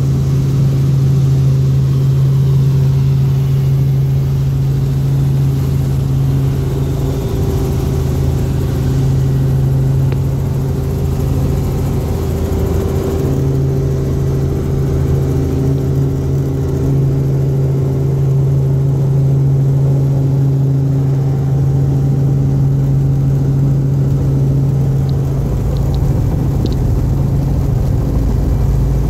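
Helicopter engine and rotor noise heard inside the cabin in flight: a loud, steady drone with a strong low hum, the low rumble growing stronger near the end.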